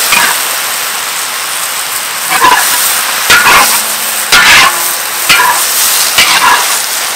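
Leafy greens sizzling and steaming in a large wok over a wood fire, with a metal spatula scraping and tossing them against the pan several times.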